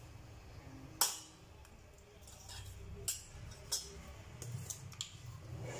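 Kitchen utensil clinks: one sharp clink about a second in, then several lighter clicks over a faint low hum, from a steel spoon and steel bowl of spices and a plastic spice jar being handled.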